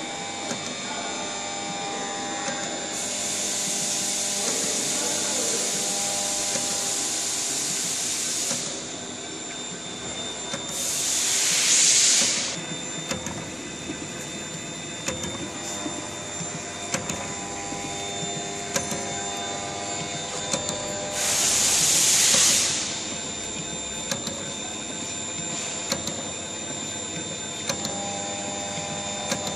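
SAVEMA feeder-conveyor belt and SVM 32I thermal transfer printer running: a steady machine hum with light clicks as cartons feed through and are printed. A long hiss comes in about three seconds in, and two shorter hisses swell and cut off about eleven and twenty-one seconds in.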